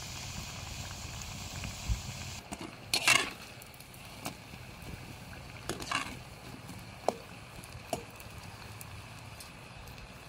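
Oil sizzling as vada fritters deep-fry in an iron kadai, with the hiss easing about two and a half seconds in. A perforated metal slotted spoon then scrapes and clinks against the pan several times.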